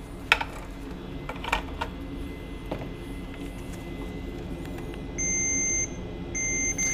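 Digital multimeter's continuity buzzer beeping twice near the end, each a steady high tone of about half a second, as the probes touch a laptop motherboard's CPU power line: the line still reads as a short with both MOSFETs removed. A few faint clicks come earlier.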